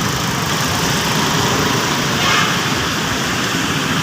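Steady vehicle noise: a small engine running under a continuous rush of noise, with a brief louder hiss a little past the middle.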